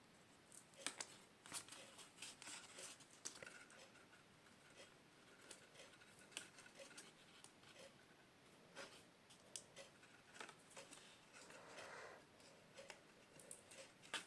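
Faint, irregular clicks and light paper rustles of fingernails picking at and peeling the backing paper off a strip of double-sided adhesive on cardstock.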